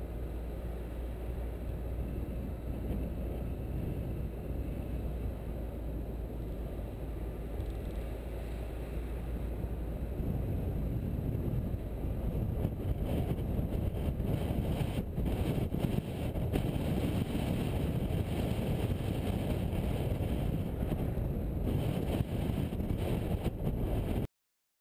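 Car driving along a road, heard from a bonnet-mounted camera: a steady low rumble of engine and tyres with wind on the microphone, growing a little louder about ten seconds in, with a few faint knocks midway, then cutting off abruptly just before the end.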